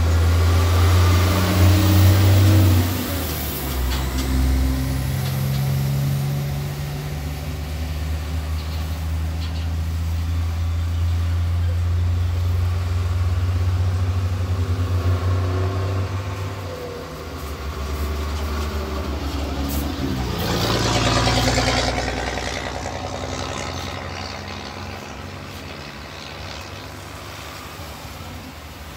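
Road traffic: a vehicle engine running with a low, steady rumble for the first two-thirds, then a vehicle driving past about twenty seconds in, swelling and fading away.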